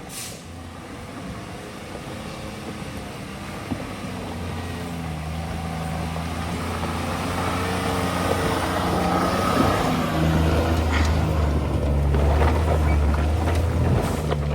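Full-size pickup truck's engine running under load as it crawls over a rocky off-road obstacle, growing steadily louder, with a few knocks near the end.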